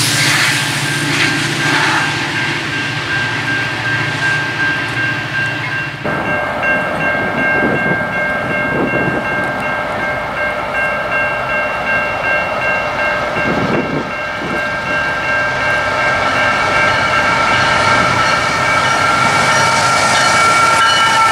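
Diesel locomotive passing at track side for the first few seconds, with a low engine rumble. Then a GE Tier 4 freight locomotive sounds its multi-note air horn for a grade crossing as it approaches, a steady chord whose pitch drops near the end as it passes.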